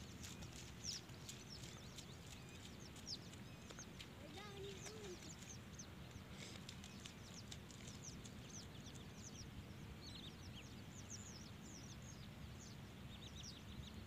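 Many small birds chirping in quick, high-pitched calls over a low, steady background rumble. A soft knock comes about a second in and another about three seconds in.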